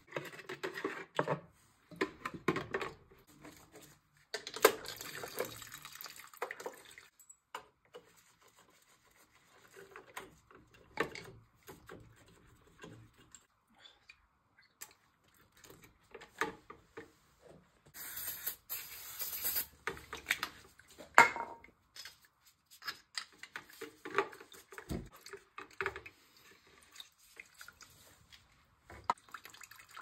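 Hands servicing an oil burner's fuel pump: a rag wiping, small metal parts clicking and scraping, and fuel oil trickling and dripping into a catch cup with the pump cover off.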